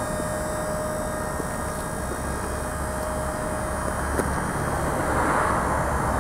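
Electric scissor lift's hydraulic pump motor running steadily as the platform rises, with a thin steady whine and a click about four seconds in.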